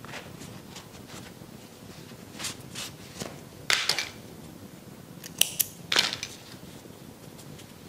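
Small scissors picked up and snipping: a series of short, sharp clicks and snips, the loudest cluster about four seconds in and more about five and a half to six seconds in.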